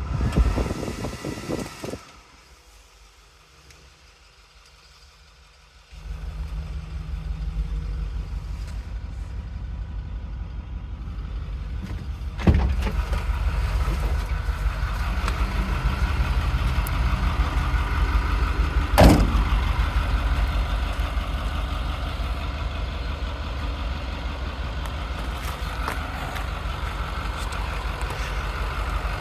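Diesel engine of a 2012 International TerraStar truck idling steadily. It comes in abruptly after a few quiet seconds near the start. Two sharp knocks sound during the idle.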